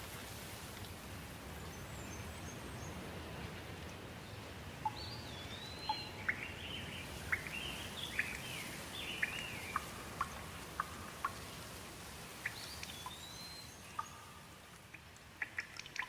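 Steady rain hiss with birds calling over it: a few arched whistled calls and a run of quick chirps in the middle. The rain eases near the end, where sharp single drips stand out.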